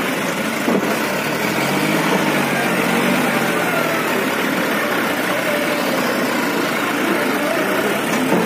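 John Deere 5045D tractor's diesel engine running hard under heavy load, pulling a trolley fully loaded with mud through soft ground so that its front wheels lift. The engine note wavers slightly.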